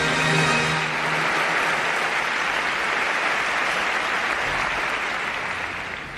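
Large audience applauding, with music ending about a second in; the clapping dies away near the end.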